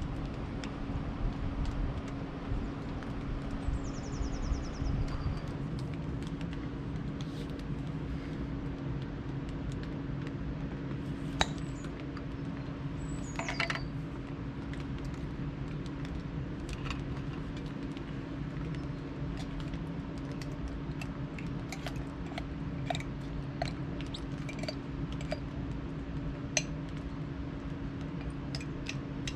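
Camping cookware being handled: small metal pots, lids and utensils clinking and clicking now and then on a wooden bench, with a couple of brief ringing clinks a little before the middle, over a steady low hum.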